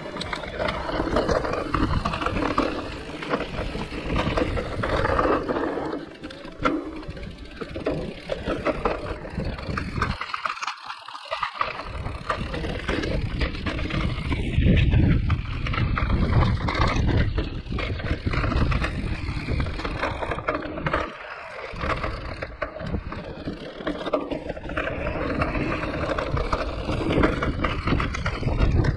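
Mountain bike being ridden along a trail: continuous tyre and ride noise that rises and falls, its low rumble dropping away briefly about ten seconds in.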